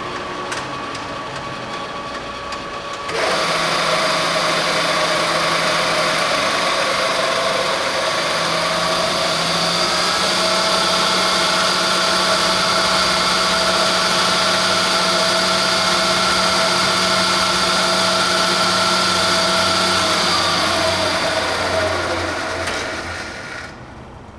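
YCM-SuperMax horizontal-vertical milling machine's motor and gear train start up about three seconds in and run with a steady whine. Near the end the machine is switched off and coasts down, its whine falling in pitch as it fades.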